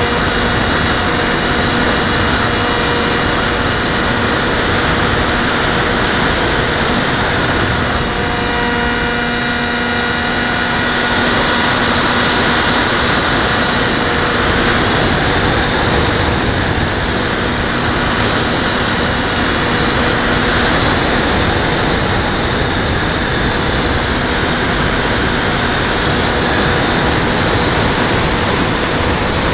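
Model airplane's motor and propeller running in flight, heard from the onboard camera with a heavy rush of wind. A high whine rises and falls several times in the second half as the plane manoeuvres.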